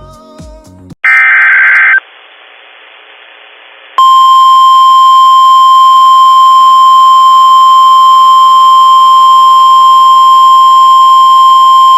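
An Emergency Alert System SAME data burst, about a second of loud digital warbling tones, comes about a second in. After a short gap, a steady, loud, single-pitched NOAA Weather Radio 1050 Hz warning alarm tone starts about four seconds in and holds, signalling that a new weather warning is about to be read.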